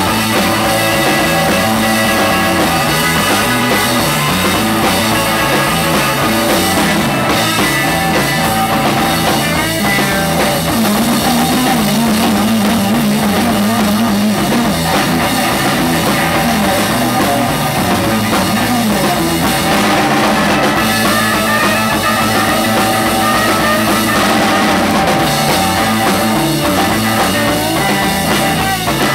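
Live rock band playing an instrumental: an electric guitar plays lead over a drum kit keeping a steady beat, loud and continuous.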